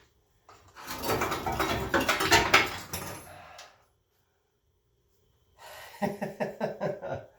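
Metal clanking and scraping for about three seconds as the freed rear axle assembly, the Malibu's worn-out GM 7.5-inch rear end, is moved out from under the car. Near the end comes a short run of quick, breathy voice sounds.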